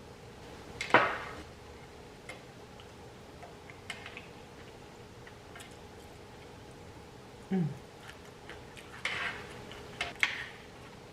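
Scattered clicks and clinks of dishes and utensils being handled at the table, the sharpest about a second in and a small cluster near the end, with a short closed-mouth "mm" between them.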